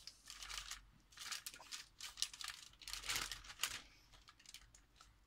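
Baking paper crinkling and rustling under a gloved hand that pats and presses an oiled raw beef patty, in a string of short, irregular rustles.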